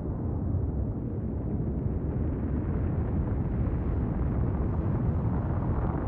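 Volcanic eruption: a continuous deep rumble from the ash-throwing vent, steady and without distinct separate blasts.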